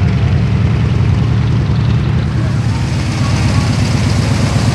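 Piston aircraft engine running at low power, a steady, deep pulsing rumble.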